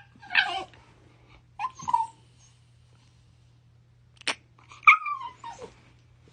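A dog whining in a few short, high whimpers, the last one falling in pitch, with a sharp click in between.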